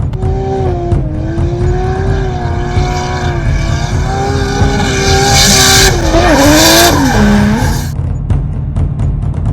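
A car engine running hard with a steady, wavering note and bursts of tyre squeal about five and six and a half seconds in. The engine note then drops away. A low music beat runs underneath.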